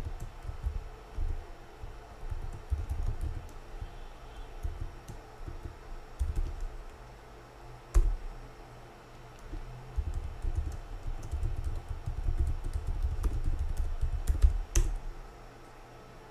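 Typing on a computer keyboard in irregular bursts of keystrokes, with two louder single key presses, one about halfway through and one near the end.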